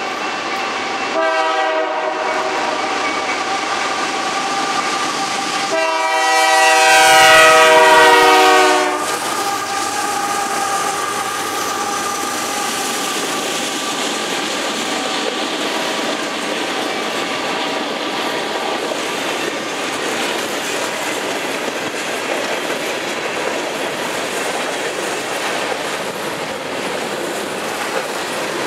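Freight locomotive horn sounding a short blast about a second in and a long, louder blast a few seconds later. A train of covered grain hopper cars then rolls past with a steady rumble and clickety-clack of wheels over the rail joints.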